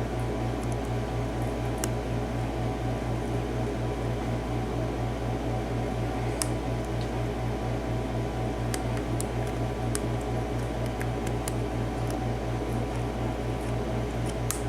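Faint scattered metallic ticks of a lock pick probing the pins of a Lockwood six-pin padlock, over a louder steady fan-like hum with a low throb pulsing about three times a second.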